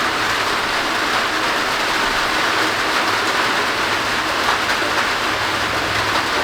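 Heavy rain pouring down in a steady, loud hiss, with no wind.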